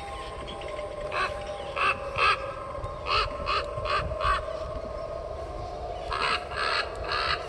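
Recorded crow caws from a light-up Halloween bird prop with a glowing red eye: a run of short caws, a pause of about two seconds, then another run, over a steady electronic tone.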